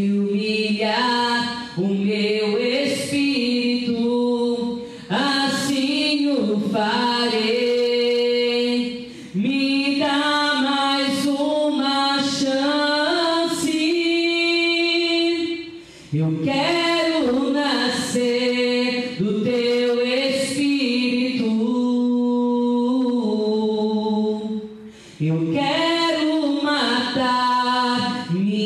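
A woman singing a slow worship song solo and unaccompanied into a microphone, in long held phrases with short breaks between them.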